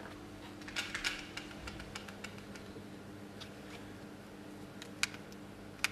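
Light clicks and crinkles of a plastic contour sheet and bumper plastic being handled while adhesive is worked around a repair tab. The clicks bunch together about a second in, and two sharp clicks come near the end, over a steady faint hum.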